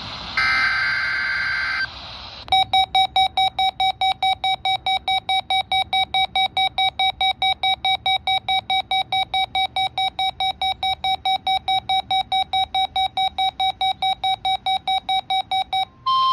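A short burst of the Emergency Alert System's SAME data tones, then a weather alert radio's alarm beeping steadily about four times a second for a tornado drill alert. The steady 1050 Hz weather radio alert tone starts near the end.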